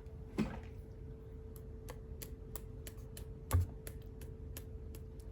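Acrylic paint being spattered onto card stock: a run of light, sharp ticks, about three or four a second, with a louder knock near the start and another about three and a half seconds in.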